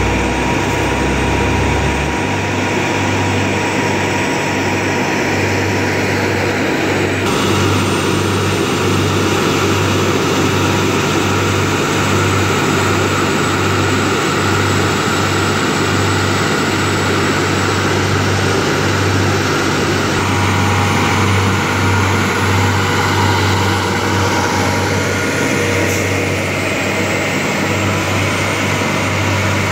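Heavy diesel engines of seismic vibrator trucks driving past in convoy: a steady, loud engine drone with a pulsing low throb.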